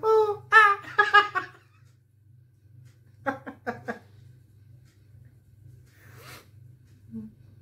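A man laughing in short voiced bursts, a quick run of 'ha-ha' pulses a little past the middle, then a short breathy rush of air. A low steady hum runs underneath.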